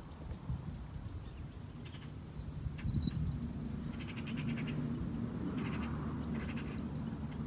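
Three short rattling animal calls in the second half, over a steady low hum that sets in about three seconds in.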